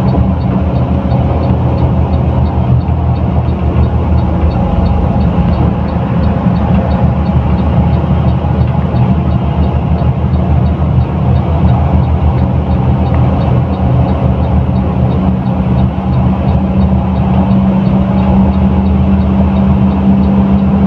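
Front-mounted diesel engine of a Mercedes-Benz OF 1623 bus running steadily under way, a loud, even drone with road noise. A faint regular ticking, about three times a second, sits above it.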